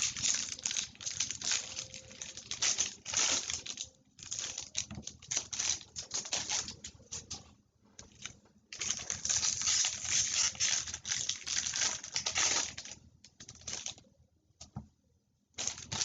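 Foil trading-card packs being torn open by hand, wrappers ripping and crinkling in several long crackly bursts with short pauses between.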